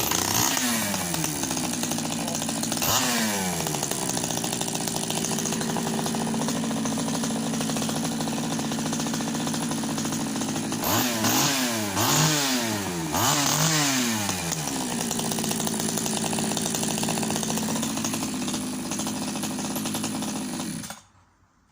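Efco 134 top-handle chainsaw's two-stroke engine running with its bar and chain removed. It fires and drops to idle, is blipped once about three seconds in, and is revved up and down several times around the middle. It then idles until it is cut off suddenly near the end.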